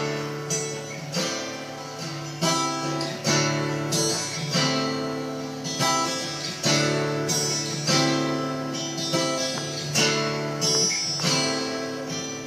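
Acoustic guitar playing an intro: a chord strummed about once a second, each left to ring out before the next.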